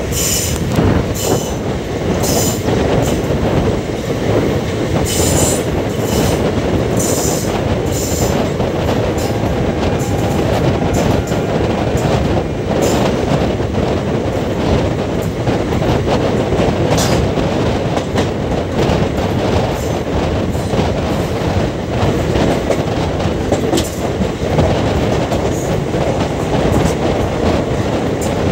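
Indian Railways express train running along the track: a steady, loud rumble of wheels on rails, with a string of sharp, high ticks over the first several seconds.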